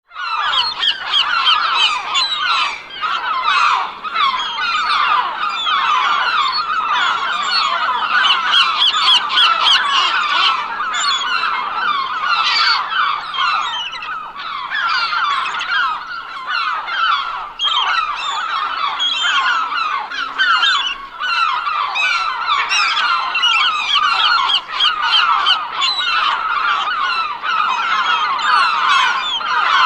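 A large flock of seagulls calling all at once: many short, overlapping squawks and cries in a dense, unbroken chorus.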